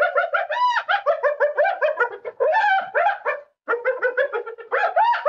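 Spotted hyena giggling: a fast run of short, high yelps that rise and fall, about six a second, with a brief break about two-thirds of the way through.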